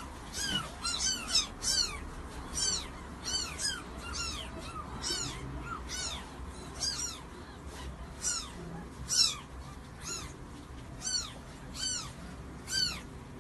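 Young kittens mewing over and over: short, high-pitched calls that rise and fall in pitch, about one or two a second.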